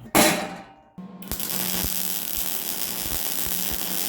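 A short thump at the very start, then from about a second in an Eastwood MIG 175 welder's arc runs steadily: a continuous buzzing hiss with irregular crackling. The arc is burning steadily on a sound ground through a newly fitted ground clamp.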